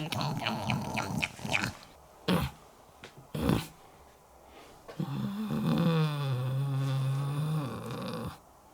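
Comic, voiced snoring performed for a puppet: short snorts and rattles in the first couple of seconds, a couple of brief sniffs, then one long, low, drawn-out snore from about five seconds in.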